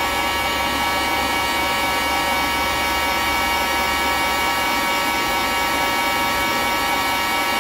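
Electric hot air gun running steadily on its low heat setting: a steady fan-motor whine over a rush of air.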